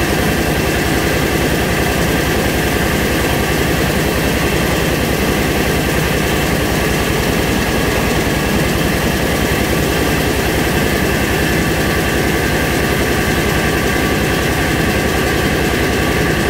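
Mobile rice mill running steadily: the engine's rapid, even pulses under a steady high whine from the milling machinery.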